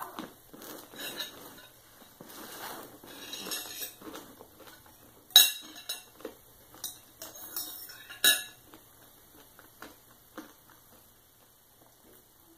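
Knife and fork scraping and clinking against a plate while cutting sausage. Scraping fills the first few seconds, then come scattered clinks, the two loudest about five and eight seconds in.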